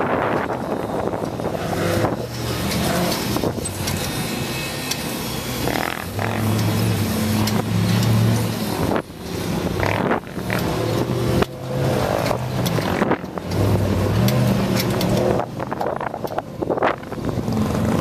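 Ultra4 rock-racing car's engine revving in repeated surges and easing off between them as the car crawls over boulders.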